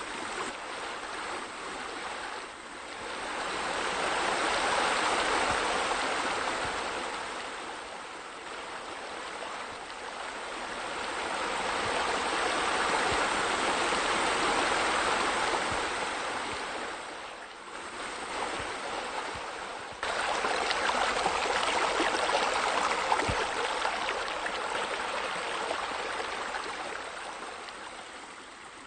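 Rainfall curtain water feature: many streams of water pouring down around a spa into the pool, a steady splashing rush. It grows louder and softer several times and steps up suddenly about two-thirds of the way through.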